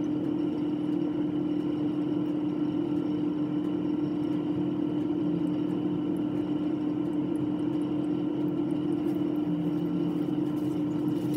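Steady mechanical hum with one strong low tone and fainter higher tones, unchanging throughout.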